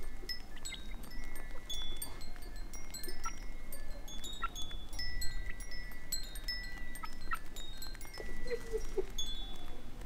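Wind chimes ringing in scattered, overlapping high notes, with a few soft clucks from young hens near the end.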